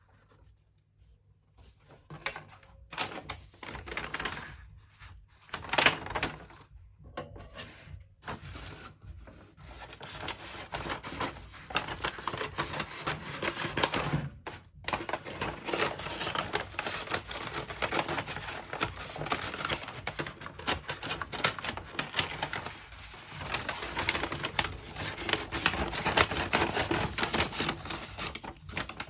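Paper and cardboard packaging handled by hand: scattered short rustles and taps, then from about ten seconds in a continuous dense crackling rub.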